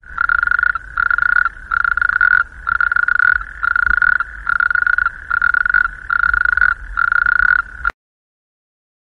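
A frog calling: nine short, evenly spaced calls at a steady high pitch, about one a second, that cut off suddenly near the end.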